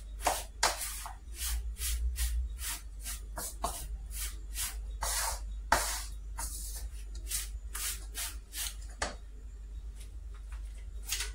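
Wooden spoon stirring a dry flour, coconut and cranberry cake mixture in a metal cake pan, a rhythmic scraping and rubbing of about two to three strokes a second. The strokes stop with a sharper knock about nine seconds in.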